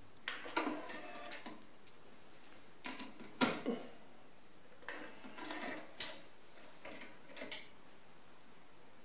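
Sony TC-K990ES cassette deck's motorized cassette door and loading mechanism: short motor whirs and plastic-and-metal clicks as the door opens, a cassette is set in with a sharp click, and the door closes and latches with another sharp click. More mechanical clicks and a brief whir follow near the end.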